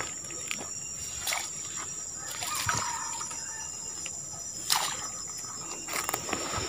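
Water splashing and sloshing a few times as a fish is tipped out of a mesh keep bag back into the river, with a sharp splash near the middle the loudest. Under it, a steady high drone of insects.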